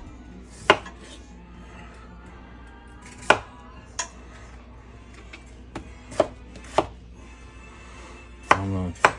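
Kitchen knife cutting peeled potatoes on a wooden cutting board, the blade knocking sharply against the board about seven times at irregular intervals.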